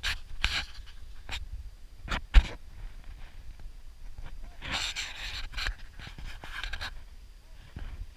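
Heavy panting breaths close to the microphone, in irregular bursts, with a sharp thump a little over two seconds in.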